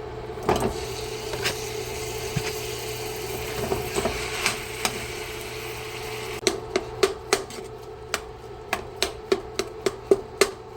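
Ground chicken frying in hot olive oil in a pan, with a steady sizzle. From about six seconds in, a utensil knocks against the pan again and again, roughly three times a second, as the chicken is stirred.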